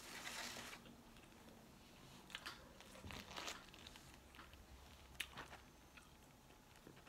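Faint eating sounds: a burger being chewed, with a few soft crunches and the rustle of its paper wrapper.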